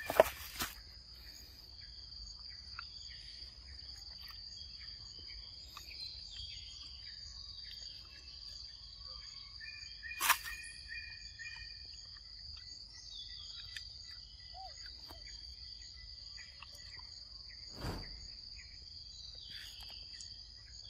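Steady high-pitched chirring of insects in the forest. A few sharp clicks or knocks break in, the loudest just after the start and another about ten seconds in, with a duller thump near the end.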